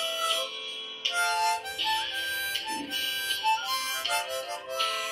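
Harmonica played with the hands cupped around it. A held chord gives way about a second in to a quick run of short, changing notes, which settles into a held chord again near the end.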